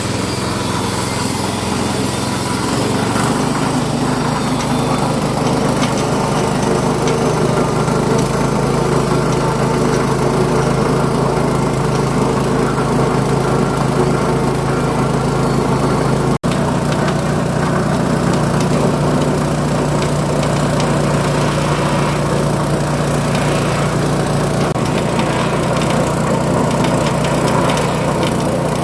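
Salt-grinding machine running steadily under its motor, its hum shifting up slightly in pitch about three seconds in. The sound breaks off for an instant near the middle.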